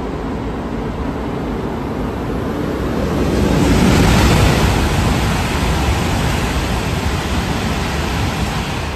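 E5 series Hayabusa shinkansen, coupled with a Komachi set, passing through a station without stopping at close to 320 km/h: a rushing roar that swells to its loudest about four seconds in as the nose goes by. It holds while the cars stream past, then begins to fade near the end.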